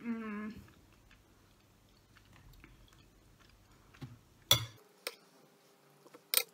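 Close-up chewing of soft mantı dumplings in yogurt, opening with a brief hummed 'mmm'. A metal spoon gives two sharp clinks, about halfway through and near the end.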